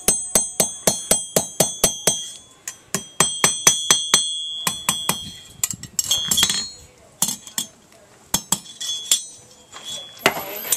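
Hammer blows on an anvil while forging a small steel hook, each strike ringing out: a fast, even run of about five blows a second for the first few seconds, then slower, scattered taps.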